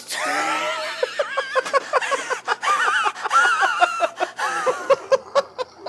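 Two men laughing hard, in loud rhythmic bursts of laughter that trail off near the end.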